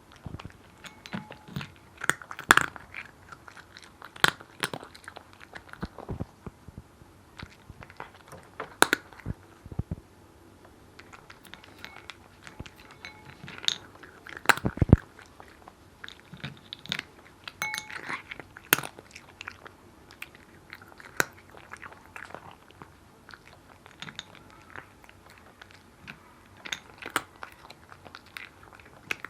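A cat crunching and chewing dry kibble: irregular sharp crunches, with brief pauses between mouthfuls.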